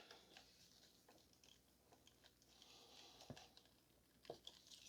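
Near silence with a few faint, short clicks, as fuel injector electrical connectors are unplugged.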